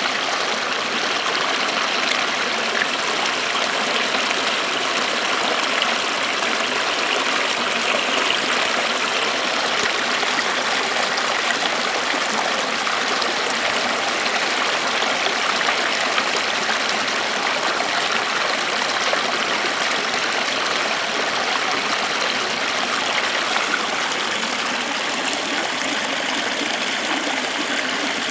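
Small waterfall: a steady rush of falling, splashing water.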